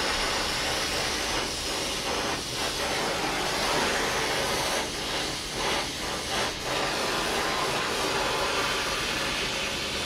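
Brazing torch flame burning with a steady hiss as it heats a copper pipe joint while brazing rod is fed in.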